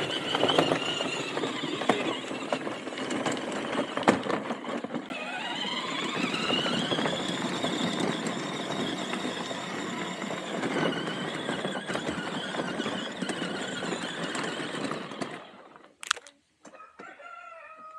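Garvee 24-volt kids' electric ride-on jeep driving over dirt: its electric drive motors and gearboxes whine steadily, rising in pitch about five seconds in as it picks up speed. The sound cuts off suddenly near the end, followed by a single click.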